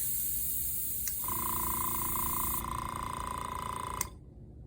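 Iwata Smart Jet airbrush compressor: compressed air hisses out, and about a second in the compressor motor kicks in with a steady hum to refill its air tank. The motor cuts off suddenly near the end.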